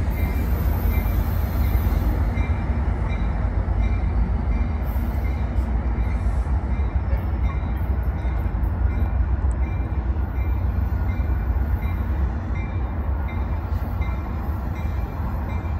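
Trinity Railway Express commuter train pulling away: a steady low rumble with wheel and rail noise, easing off slightly as the train recedes.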